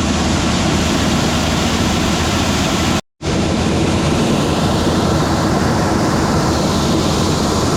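A red gravity wagon unloading shelled corn into the wet bin, heard as a loud steady rush of pouring grain over a tractor engine and auger running. It cuts out for a moment about three seconds in, then carries on unchanged.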